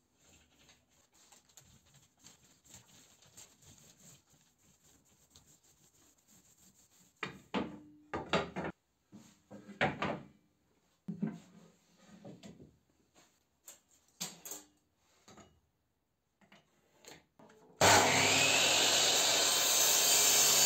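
Faint rustle of a small paint roller on an MDF board, then pine laths knocking and clattering as they are handled and laid on a wooden table. Near the end an electric miter saw starts abruptly and runs loudly.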